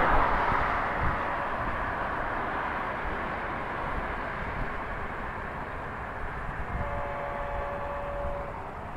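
Florida East Coast Railway diesel locomotive approaching with its freight train: a steady rumble of engine and rolling wheels, easing slightly. A horn sounds for about a second and a half near the end.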